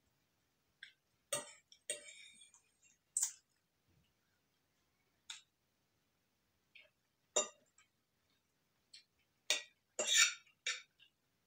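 Metal fork clinking and scraping against a ceramic plate in short, scattered taps, with a quick run of clinks near the end.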